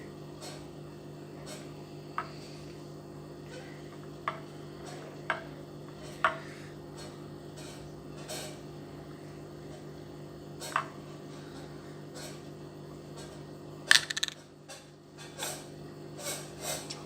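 Irregular sharp clicks from a creaking, clicking chair, a few seconds apart with a quick cluster of louder clicks about three-quarters of the way through, over a steady low hum.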